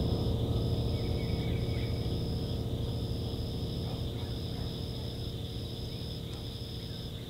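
Night insects, crickets, trilling steadily in a high-pitched chorus. One trill breaks off briefly about once a second. Underneath is a low rumble that slowly fades.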